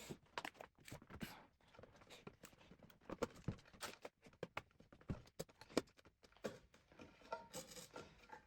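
Scattered faint clicks and light knocks of a cassette deck's front faceplate being handled and worked loose.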